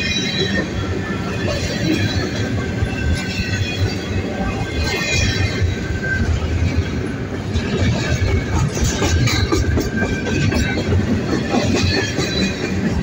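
Double-stack intermodal container train rolling past: a steady rumble and clatter of steel wheels on the rails. Short high-pitched wheel squeals come and go throughout.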